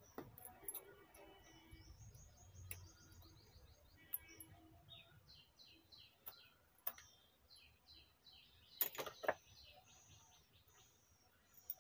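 Birds chirping in quick series of short high notes, with scattered sharp clicks and taps from hand tools being handled, the loudest pair about nine seconds in.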